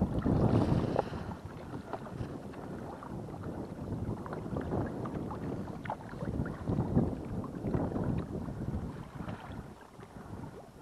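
Water sloshing and splashing against concrete blocks at the water's edge, with wind on the microphone; loudest in the first second.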